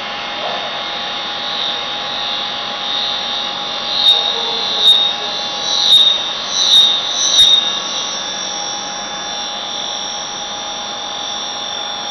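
CNC vertical mill's face-milling cutter cutting a metal block: a steady high-pitched cutting whine, with five short, sharp, louder bursts less than a second apart in the middle.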